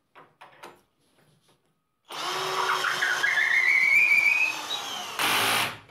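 Counterfeit '36V' DeWalt-branded cordless drill driver driving a 12 mm wood screw into pine at its maximum torque setting: the motor whines and rises in pitch for about three seconds. Near the end comes a harsher rattling burst of about half a second as the clutch slips, and then it stops.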